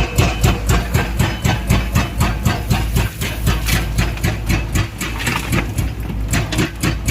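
Background music with a fast, steady beat, over the steady running of a JCB 3DX Xtra backhoe loader's diesel engine.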